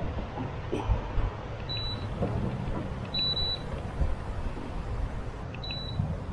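Three short, high-pitched electronic beeps, roughly two seconds apart, from the boat's electronics, over a steady low rumble.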